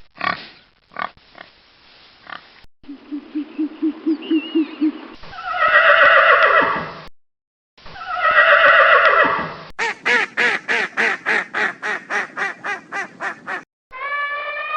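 A series of animal calls from different clips. There are a few clicks, then a quick run of low hoot-like pulses, then two long calls falling in pitch, and then a fast run of pulsed calls at about four or five a second.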